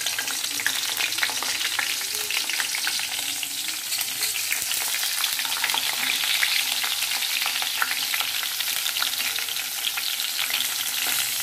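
Masala-stuffed brinjals sizzling and crackling in hot oil in a pan as they are laid in one after another.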